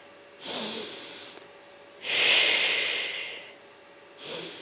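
A woman breathing audibly through controlled Pilates breaths as she exercises on a mat. There is a short breath about half a second in, a long, loud breath about two seconds in, and another short breath near the end.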